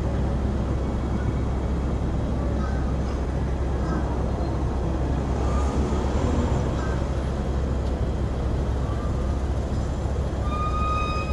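Steady low rumble of road traffic, with faint scattered chirps and a brief held high tone near the end.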